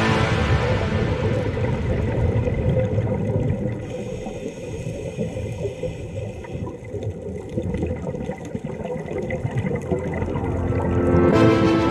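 Muffled underwater rumble picked up by a camera in its housing: a low, churning noise of moving water. Background music fades out at the start and comes back near the end.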